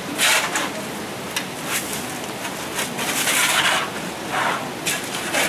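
Shovels scraping and scooping through wet mud and gravel in irregular strokes.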